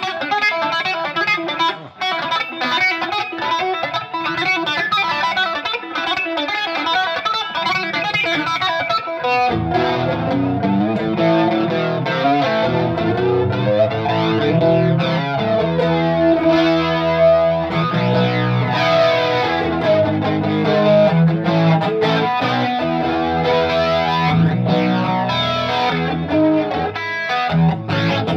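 Electric guitar played through a Fender Mustang LT25 modelling amp on its "Sweeping Flanger" factory preset, with a slowly sweeping flanger effect. The playing gets fuller, with heavier bass notes, from about nine seconds in.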